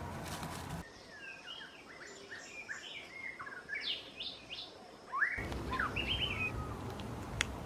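Small wild birds chirping, a rapid run of short notes that slide up and down in pitch, with one sharp click near the end.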